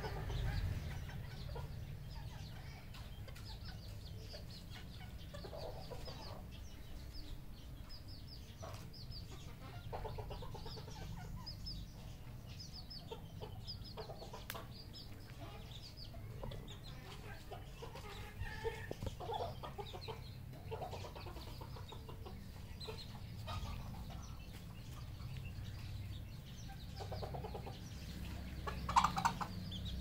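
Red junglefowl clucking and calling, with short calls scattered all through and the loudest near the end, over a steady low rumble.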